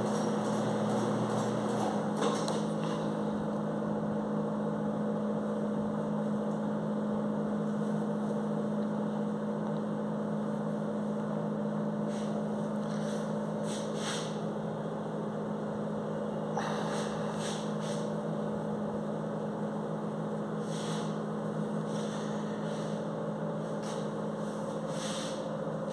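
Steady low mechanical hum with a constant pitch, and a few faint brief sounds over it.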